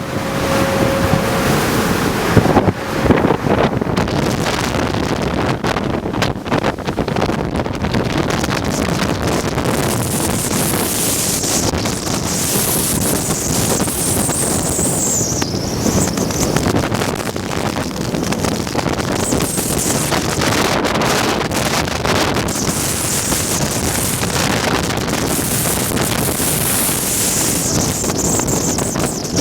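Strong wind blowing across the microphone at sea, a steady loud rush that rises and falls in gusts, with the sea's wash beneath it.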